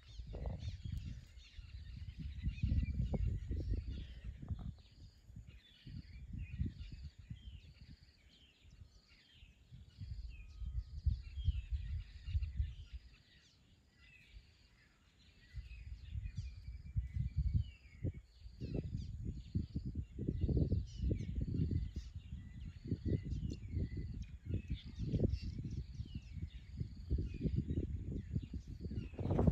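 Small birds chirping over and over, a chirp a little more than once a second, while gusts of wind rumble on the microphone, coming and going and dropping away briefly in the middle.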